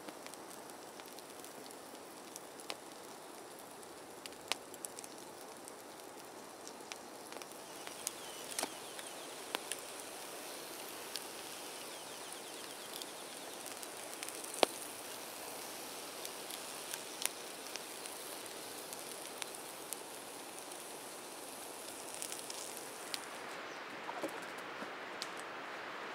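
Wood campfire crackling, with scattered sharp pops over a faint, steady outdoor hiss. The loudest pop comes about halfway through, and the hiss grows fuller near the end.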